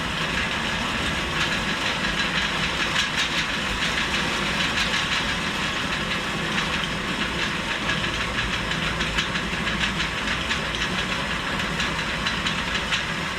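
Hay bale elevator running, its chain and flights clattering with a steady stream of rapid clicks over a constant mechanical noise while it carries straw bales down from the loft.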